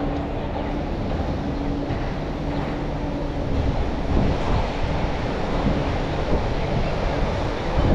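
City street ambience: a steady wash of traffic noise and wind buffeting the camera microphone, with a steady low hum underneath.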